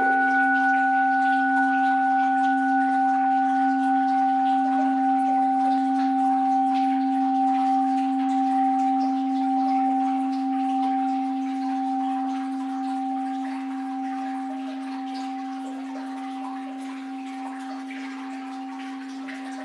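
An orin, a Japanese Buddhist bowl bell, struck once right at the start. It rings on as a low hum with two higher, clearer tones above it, fading slowly over about twenty seconds. A faint wash of flowing water lies underneath.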